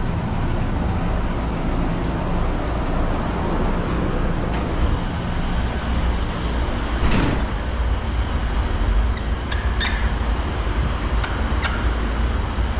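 Pressure washer running steadily, its water jet spraying, with a few short clicks and knocks along the way.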